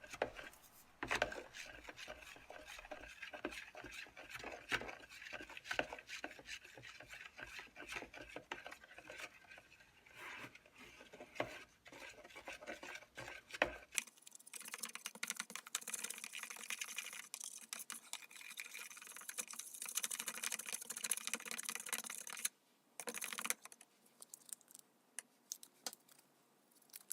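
Stir stick scraping and tapping around the sides of a mixing cup as pigment is stirred into epoxy resin: a run of light scrapes and clicks. About halfway through the sound changes abruptly to a steady high hiss with scattered light clicks.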